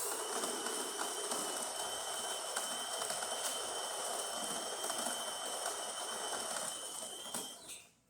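DeLonghi Magnifica XS bean-to-cup espresso machine running through a test-shot cycle: a steady mechanical whir with a thin constant whine that stops shortly before the end.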